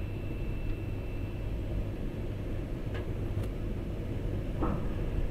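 Snack-frying line machinery running, its stainless steel chain conveyor among it: a steady low rumble with a few light knocks.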